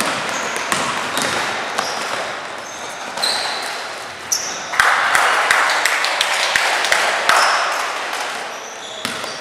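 Basketball being played on a hardwood-style gym court: the ball dribbled and bouncing, sneakers giving short high squeaks, and players' voices calling out, loudest about five to seven seconds in.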